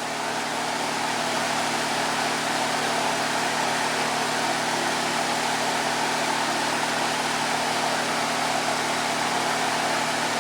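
Electric fan running steadily: an even rush of air with a constant low hum.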